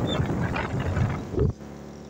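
Wind buffeting the microphone of a moving camera, a loud uneven rumble that cuts off abruptly about one and a half seconds in. A much quieter, steady vehicle engine hum follows.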